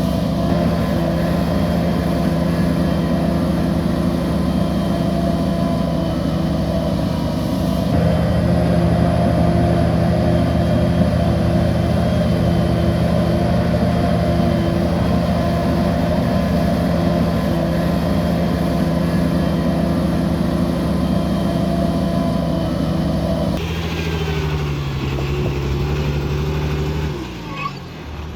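Heavy diesel earthmoving machinery running steadily, its engine note changing abruptly twice, then falling in pitch near the end as the engine slows.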